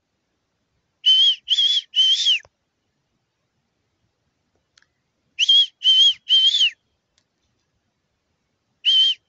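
A person whistling to call back a dog: three short, high whistles, the last one longer and dropping in pitch. The group of three is repeated about every four seconds.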